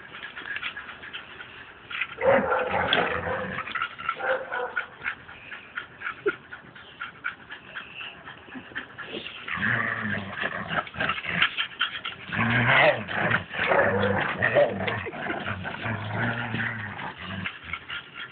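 Two dogs growling in play as they pull against each other in a tug of war over a plastic bottle, the growls coming in bouts and strongest in the second half, with many short clicks and scrapes throughout.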